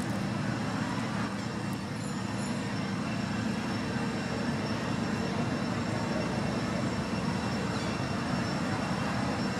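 Steady outdoor background noise with a low rumble like distant road traffic and a few faint steady high tones.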